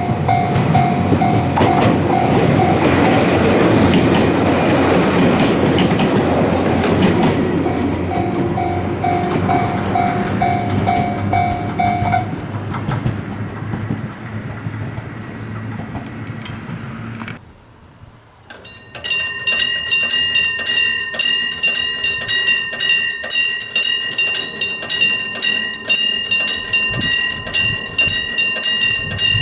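A train passes over a level crossing, wheels clattering on the rails, while the crossing's electronic alarm repeats a pulsing beep; the train noise fades away. About two-thirds through, the sound cuts and an electric-bell crossing alarm starts ringing, its hammer striking the bell rapidly and without pause.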